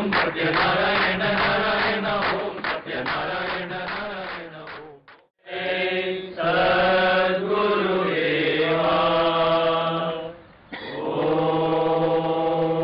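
Devotional mantra chanting: voices intoning on a steady low pitch in long held notes, breaking off briefly about five seconds in and dipping again about ten seconds in.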